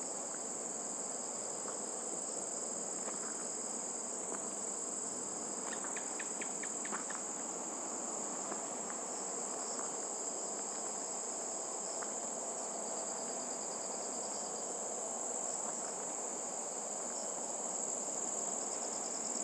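Continuous high-pitched trilling of crickets, with a few faint taps and scrapes from a spatula stirring thick halwa in a steel pan.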